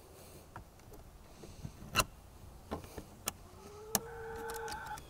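Scratching, rubbing and scattered knocks from an earbud microphone brushing against clothing as it is handled. In the last second and a half a steady pitched sound, rising slightly, is held under the knocks.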